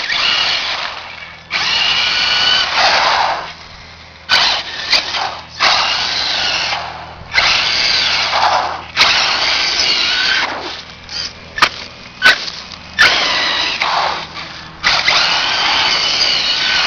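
Brushless electric motor of a radio-controlled rail buggy whining in repeated bursts of throttle, each a second or two long, its pitch rising and falling as it accelerates and lets off. A few sharp clicks come between bursts.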